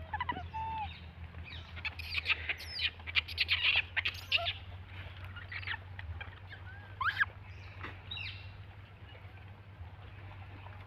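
Birds chirping: scattered short high chirps and quick whistles, busiest in the first half and with one rising whistle about seven seconds in, over a steady low hum.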